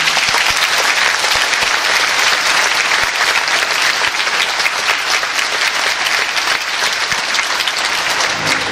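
Theatre audience applauding: dense, steady clapping with no music under it. Orchestral music comes back in at the very end.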